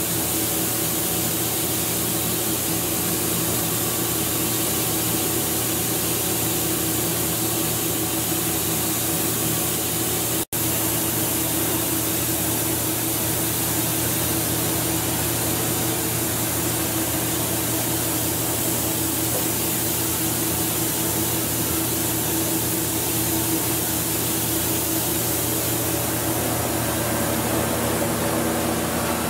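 Steady hiss with a constant low hum from the running Walter Helitronic Vision CNC tool grinder. The sound cuts out for an instant about ten seconds in.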